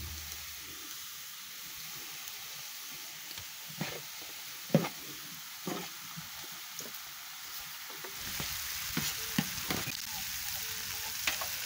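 Nopales, onions and chiles sizzling on a hot metal griddle over a wood fire, with metal tongs clicking and scraping against the griddle as they are turned. About eight seconds in, the sizzle grows louder as meat grills alongside.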